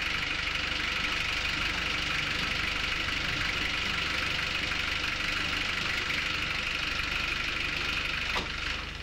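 SUV engine idling with a steady drone, cutting off suddenly near the end.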